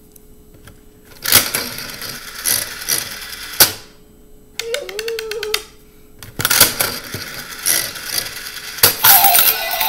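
Toy mini Jumbo Slot slot machine spinning: its reels whir and clatter for about two and a half seconds and stop with a sharp click. A brief gliding tone comes between two such spins, and a further clatter starts near the end.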